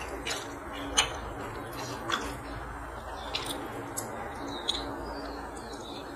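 Eating by hand: wet smacks and sharp clicks of chewing and of fingers working curry-soaked rice on a steel plate, about one a second, over a steady low hum.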